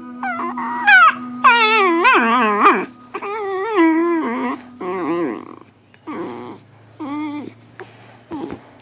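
Dachshund howling and whining in a run of wavering cries. The long, loud ones come first; they grow shorter and quieter about halfway through.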